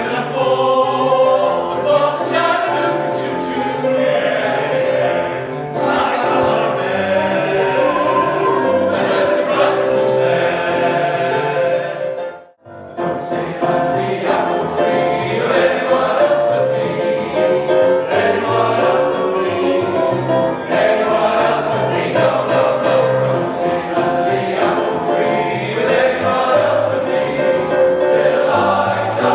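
Male voice choir singing in full harmony with sustained chords. About twelve seconds in, the singing breaks off abruptly and then resumes.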